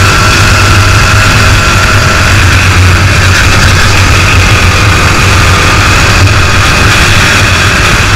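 Racing kart's engine running loud and steady at speed, heard close up from a camera mounted on the kart.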